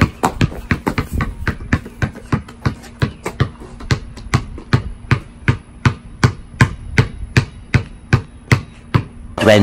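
Basketball dribbled one-handed on concrete, bouncing steadily about four times a second.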